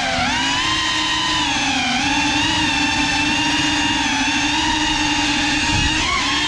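FPV quadcopter's motors and propellers whining as it flies, the pitch rising and falling gently with the throttle after a brief dip at the start.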